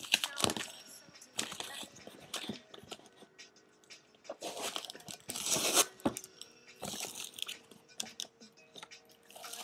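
A package being torn open by hand: box tape tearing and plastic bubble wrap crinkling in irregular bursts, loudest about five seconds in.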